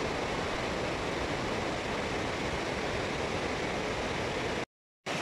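Fast white-water mountain river rushing over boulders: a steady, even rush of water that cuts off abruptly near the end.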